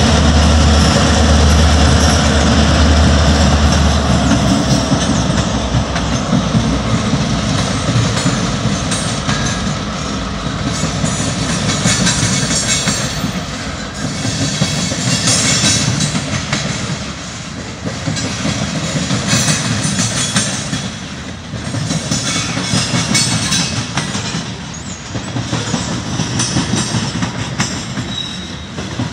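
Freight train passing: the low rumble of the diesel locomotives fades over the first few seconds, then covered hopper cars roll by with a steady clatter of wheels over the rails that swells and dips every few seconds. A high squeal of wheels rises now and then.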